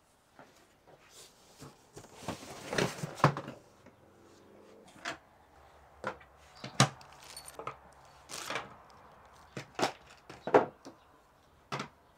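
Unpacking a box: a rustle of cardboard and plastic packaging, then a series of sharp knocks as the robotic mower's accessories (charging station, cables, ground stakes) are set down one by one on a wooden table.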